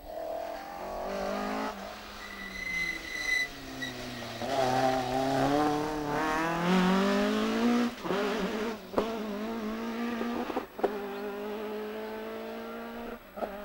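Mk2 Ford Escort rally car accelerating hard past and away, its engine revs climbing and dropping back at each gear change. A brief high squeal comes early, and two sharp cracks come at gear changes later on as the car pulls into the distance and fades.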